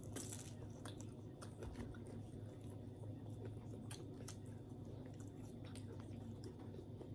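Faint chewing and mouth sounds of someone eating pizza and french fries, scattered soft clicks over a low steady hum.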